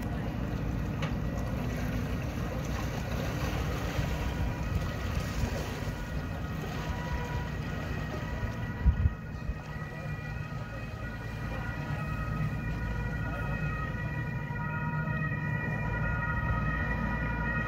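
Small river ferry's engine running as it manoeuvres close to the bank, a low steady rumble. From about seven seconds in, a steady high whine of several tones rises above it. A single thump comes about nine seconds in.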